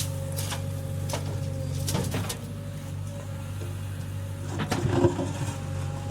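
Heavy diesel machinery running steadily, with short metallic knocks every second or so and a louder clatter about five seconds in, from a backhoe loader working soil.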